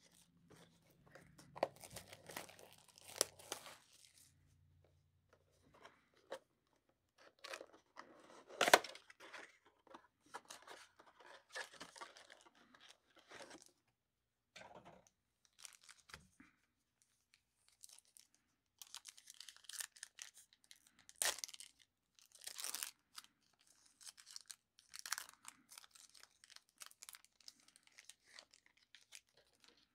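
Cardboard and plastic packaging of a 2020 Panini Prizm football blaster box being torn and crinkled open, then its foil card packs being handled and ripped. It comes in scattered bursts of tearing and rustling with short quiet gaps, the sharpest about nine seconds in.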